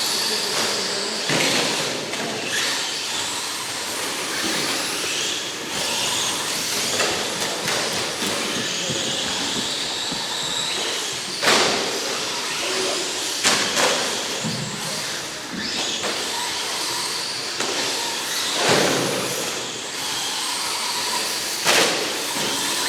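Radio-controlled short-course trucks racing around the track: a steady hiss of motors and tyres, with faint whines rising and falling as the cars speed up and slow down. A few sudden louder bangs stand out, about eleven, thirteen and nineteen seconds in.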